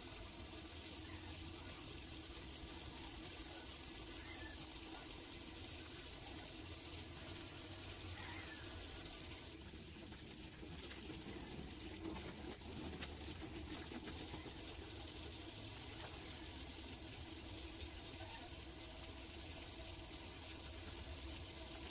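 Kitchen tap running a thin, steady stream into a stainless steel sink while hands are soaped and rinsed under it.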